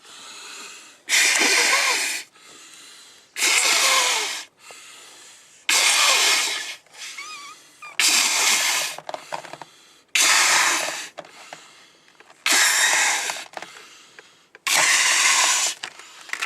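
A rubber balloon being blown up by mouth: long, hard breaths pushed into it about every two seconds, some with a squeaky whistle.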